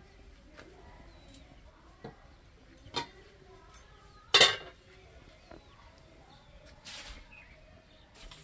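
Metal lid of a kadai lifted off and set down with clinks and one loud clank about four seconds in.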